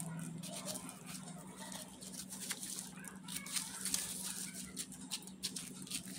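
A kitchen knife cutting a peach on a wooden cutting board: irregular small taps and scrapes of the blade against the board, over a steady low hum.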